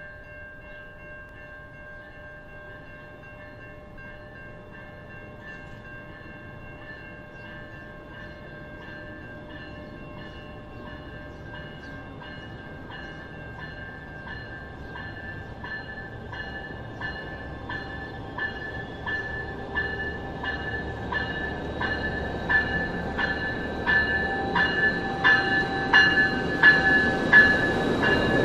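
Siemens Charger locomotive's electronic bell ringing a little more than once a second, growing louder as the train approaches, over steady ringing tones. Near the end the rumble of the locomotive and wheels rises as it rolls up to the platform.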